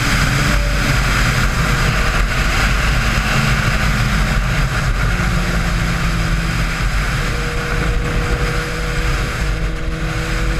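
2013 Kawasaki Ninja ZX-6R 636's inline-four engine running through an M4GP slip-on exhaust while riding at speed, under heavy wind rush. The engine note shifts in the first seconds, then holds at steady revs from about halfway.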